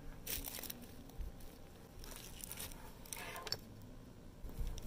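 Faint, scattered rustles and scrapes of a potted aloe and its ceramic pot being handled and moved, in a few short bursts about half a second, two seconds and three seconds in.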